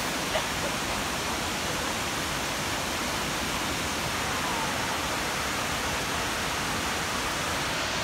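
Butte Falls, a wide tiered waterfall, rushing steadily with an even, unbroken sound of falling water.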